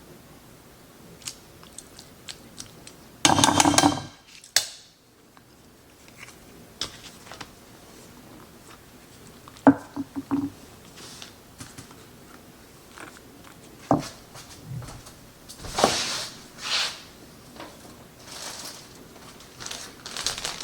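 Kitchen handling sounds while a casserole is assembled: scattered clicks and knocks of a utensil against a dish, with a loud scraping burst a little over 3 s in and a few shorter scraping or rustling bursts later on.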